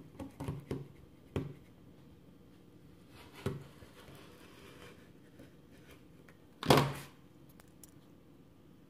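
Rotary cutter rolling along an acrylic ruler and slicing through sticky board on a cutting mat, a faint scraping with a few taps and knocks of the ruler and tool. The loudest sound is a short thump about seven seconds in.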